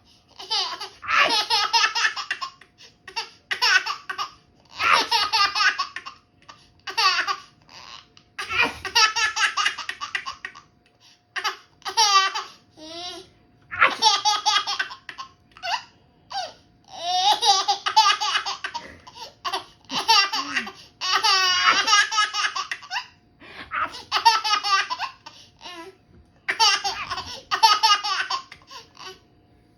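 A 13-month-old baby laughing in a dozen or so high-pitched bursts, each a second or two long with short pauses between. It is laughing at its mother's sneezes.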